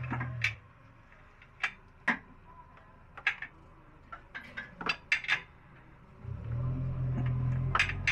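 Scattered sharp metal clicks and clinks of a ratcheting wrench on a Jeep JL manual transmission's fill plug as it is snugged up. A steady low hum comes in about six seconds in.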